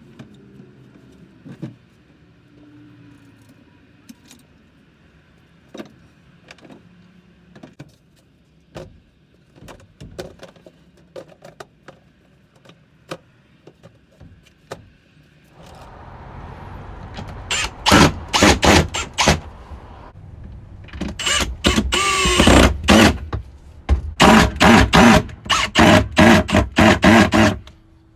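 Metal parts and hardware clinking and knocking, then a cordless impact driver running bolts in several short bursts, each a second or two long, in the second half.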